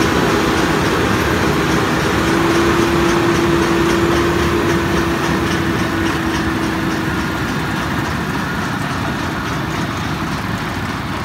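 Case IH Magnum 370 CVX tractor's six-cylinder diesel running as it passes towing a Kverneland round baler, with a steady whine that stops about seven seconds in and a fast, even clicking over the engine. The sound eases slightly in the second half as the rig moves away.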